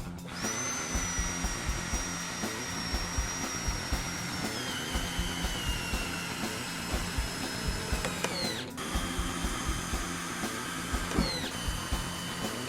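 Power drill driving screws into wood: a high motor whine that drops in pitch as the screw takes load, stopping once and starting again, over background music.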